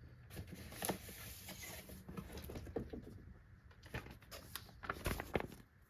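Faint rustling and scattered light clicks of cardboard and plastic packaging being handled as toy train set pieces come out of the box, with a few sharper knocks about four to five seconds in.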